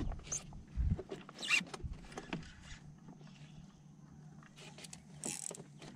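Handling noises on a small boat's deck: scattered rustles and light clicks, with a dull knock just under a second in, over a faint steady low hum.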